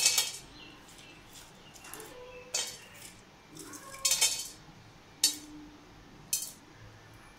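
Whole dry spices (cinnamon bark, cloves, cardamom pods, star anise) dropped by hand and tipped from a steel plate into an empty stainless-steel pan, clicking and clinking on the metal in about five short separate bursts. The spices are going in to be dry-roasted.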